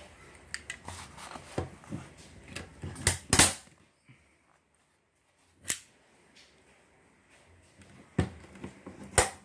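Small metallic clicks from the knob of a manual staple gun being turned, then the gun snapping loudly as it fires a T-nail into cardboard about three seconds in. More sharp clicks follow, with another loud snap at the very end.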